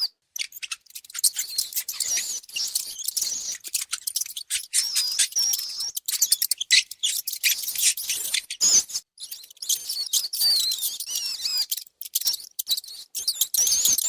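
Mice squeaking: a fast run of high-pitched chirping squeaks that slide up and down in pitch, broken by brief pauses.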